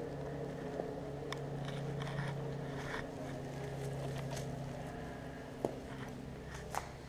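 Footsteps crunching and clicking on a debris-strewn concrete floor, a few sharp ticks scattered through, over a steady low engine-like hum from an unseen motor.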